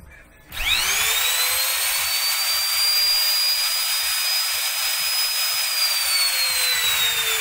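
550-watt Lotus palm router running free in the hand: its motor starts about half a second in with a quickly rising whine, settles to a steady high pitch, and slowly drops in pitch over the last couple of seconds.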